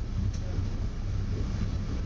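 Commuter train rolling along the rails, a steady low rumble heard from inside the cab car.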